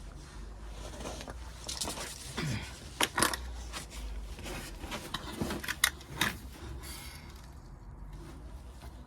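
Hand tools clicking and scraping against a rusted steel inspection plate under a VW Beetle, in short irregular knocks and scrapes.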